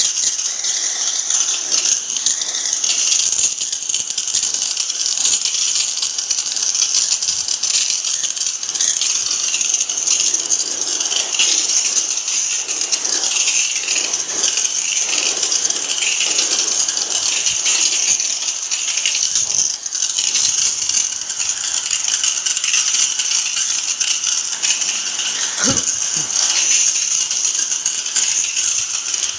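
Steady hiss of a high-pressure water spray from a hose nozzle jetting onto an air conditioner indoor unit and its plastic bag wrapping, during a cleaning wash. A single knock sounds near the end.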